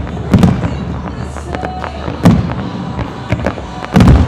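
Aerial firework shells bursting with loud deep booms, three big ones about half a second in, a little past two seconds and near the end, with sharper cracks between them, over music played for the show.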